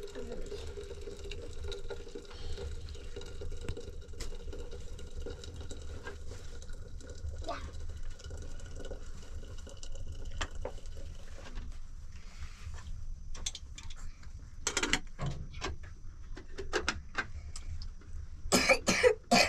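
A person coughing in short loud bursts, a few near the end, over a steady low hum and scattered small knocks.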